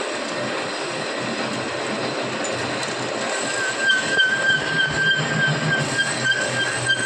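Metalworking machine running with a steady hissing noise. About halfway in, a steady high whine and a low hum set in, and the sound gets louder and uneven.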